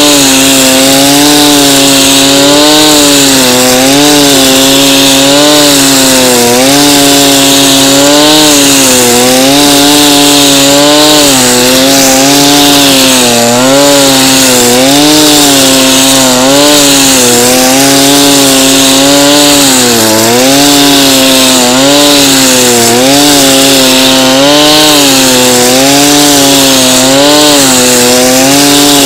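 Two-stroke brush cutter running at high revs with a nylon-cord trimmer head. The engine note dips and recovers every second or two as the spinning line bites into grass, with one deeper dip about two-thirds of the way through, over a steady hiss of line and cut grass.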